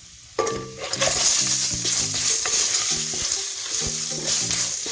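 Food sizzling and frying in a hot pan while being stirred. The sizzle starts about half a second in and grows loud about a second in.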